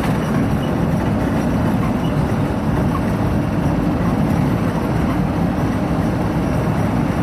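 A moving car's engine and road noise: a steady low rumble that holds even with no breaks.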